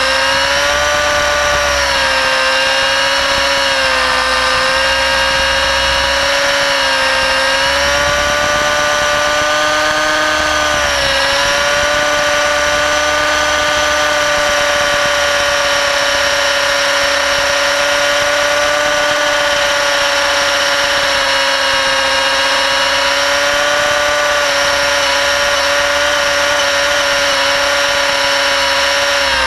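600-size nitro RC helicopter in flight: its glow engine and rotors running with a loud, steady high-pitched whine, the pitch dipping briefly and recovering about eleven seconds in.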